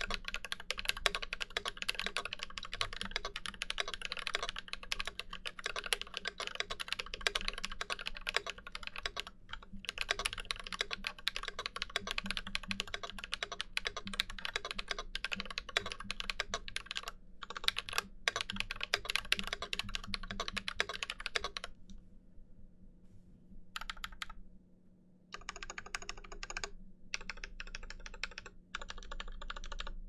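Typing on an IDOBAO ID80 mechanical keyboard with Glorious Panda tactile switches and ABS doubleshot keycaps: a fast, steady stream of key clacks. About two-thirds of the way through, the typing thins into shorter, quieter spells with brief gaps.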